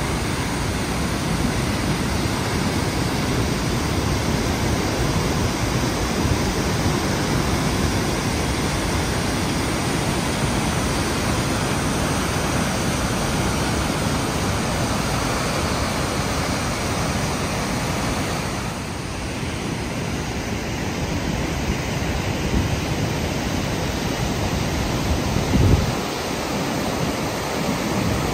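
Heavy flow of water pouring over the New Croton Dam's stepped spillway, a steady rushing roar of falling white water. A brief low thump comes near the end.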